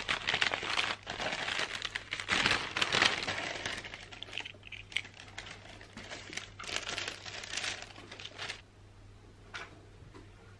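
Brown paper bag crinkling and rustling as hands open it and take out the paper contents, loudest in the first few seconds. Lighter rustles of paper and card follow, then a few soft taps near the end.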